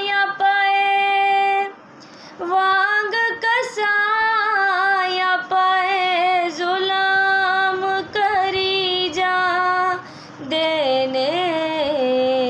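A woman singing a Punjabi hymn unaccompanied, holding long drawn-out notes with small wavering ornaments, and pausing for breath at about two seconds and again at about ten seconds in.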